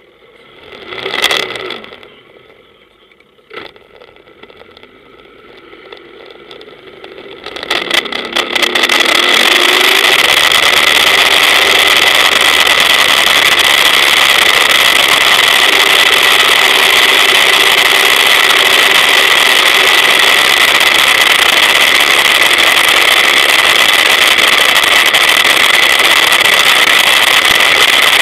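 Open powerboat pulling away and building speed: a brief loud sound about a second in, then the engine note rises. From about eight seconds in, a loud, steady rush of engine and wind noise on the microphone as the boat runs at speed.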